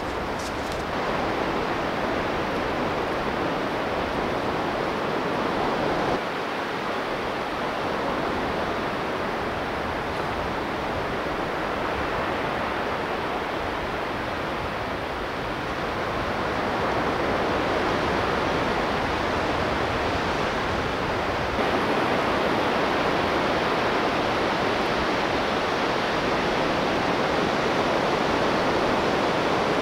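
Ocean surf breaking and washing up a sandy beach: a steady rushing noise that steps up a little in level about 6 s and again about 21 s in.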